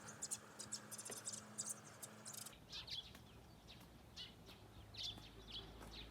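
Faint, scattered bird chirps, short and high, coming irregularly.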